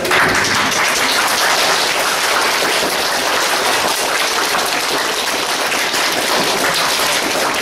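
An audience of schoolchildren applauding: dense, steady clapping that starts abruptly.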